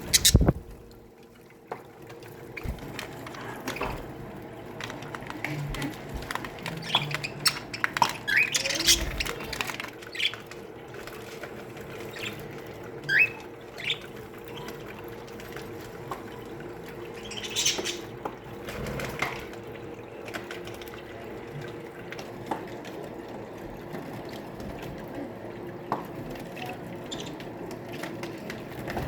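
Budgerigars in an aviary colony chirping and chattering, with scattered calls and a few louder rising chirps. A sharp knock sounds right at the start.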